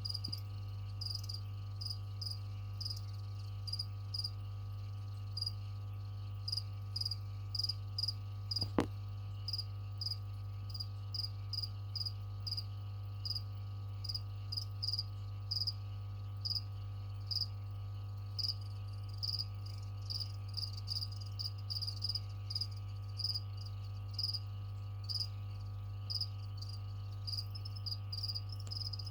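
Feeder crickets chirping: short, high chirps repeating irregularly, a little over once a second, over a steady low hum. One sharp click about nine seconds in.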